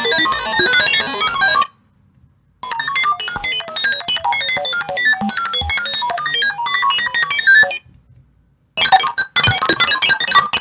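Electronic computer sound effect: rapid streams of short beeps at quickly jumping pitches, stopping for about a second twice, about one and a half seconds in and again near eight seconds.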